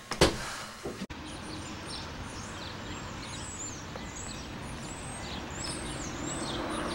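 Small birds chirping: many short, high, quickly repeated calls over a steady outdoor background hiss. A short knock sounds at the very start.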